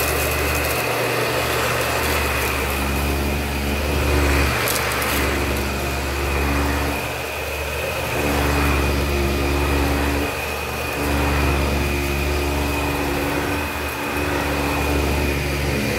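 Dyson Ball Multifloor upright vacuum running on carpet: a steady, high motor whine over a low hum that dips and swells every few seconds as the cleaner head is pushed back and forth. A brief crackle comes about five seconds in.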